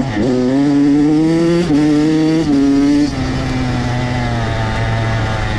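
Dirt bike engine accelerating along a trail, its pitch climbing and then dropping at three quick upshifts before holding a steady, lower note.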